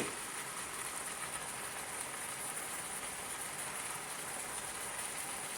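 Chicken pieces searing in an electric multi-cooker's pot on the sauté setting: a steady sizzle.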